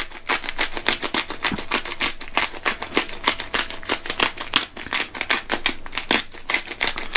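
Hand-twisted pepper grinder cracking Tellicherry black peppercorns, a rapid run of dry clicks and crunches, about six a second, as the top is turned back and forth.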